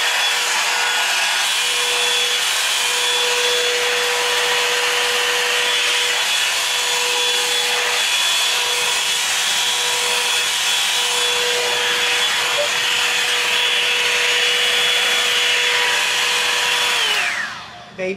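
Hair dryer running steadily, a motor whine over the rush of air. Near the end it is switched off, and the whine falls in pitch as the fan spins down.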